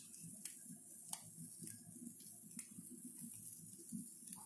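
Quiet room tone with a low hum and a few faint, irregular clicks.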